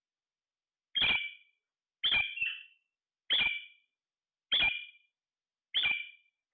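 A parrot giving a short call five times in a row, about one a second, each call starting abruptly and fading quickly.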